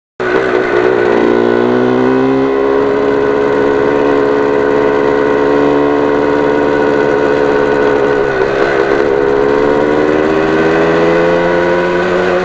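Yamaha RD400's two-stroke parallel-twin engine running while the bike is ridden. Its pitch climbs about a second in, holds fairly steady with a slight dip, then climbs again near the end.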